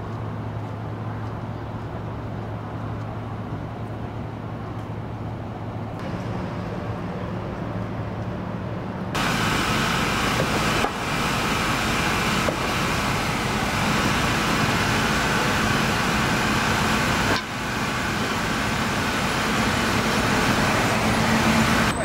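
City street traffic: vehicle engines running with road noise. A steady low hum at first, then louder and fuller from about nine seconds in.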